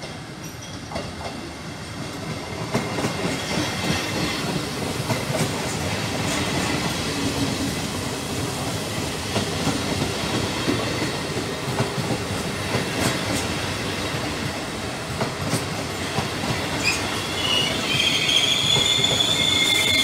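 A Trenitalia regional push-pull train of MDVC coaches, hauled by an E.464 electric locomotive, rolls past with a steady rumble of wheels on rails and scattered clicks over the rail joints, growing louder as it approaches. Near the end its brakes start a high, steady squeal as it slows.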